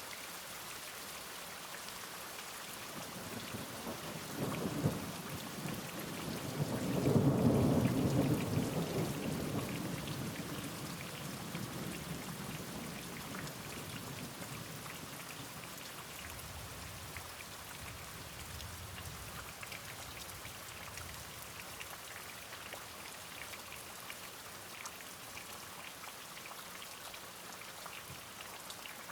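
Steady rain with a roll of thunder that builds a few seconds in, is loudest about seven seconds in, then rumbles away, followed by a fainter distant rumble.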